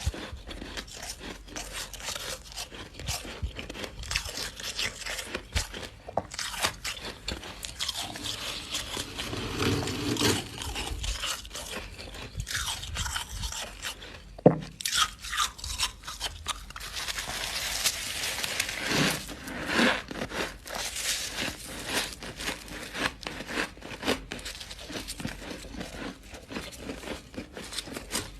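Close-miked biting and chewing of powdery freezer frost: a dense, continuous run of crunches with some scraping, one sharper crunch about halfway through.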